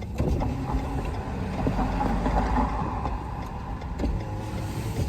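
Road and engine noise of a Ford pickup truck driving, heard from inside the cab: a steady rumble that swells slightly in the middle.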